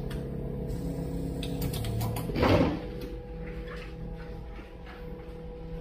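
Flex cable bonding machine with a steady hum, with a few clicks and one brief louder mechanical sound about two and a half seconds in as its press head comes down on the flex cable.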